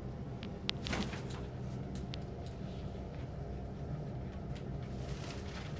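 Pigeon loft room sound: a steady low hum with scattered light clicks and taps, a cluster about a second in and more near the end.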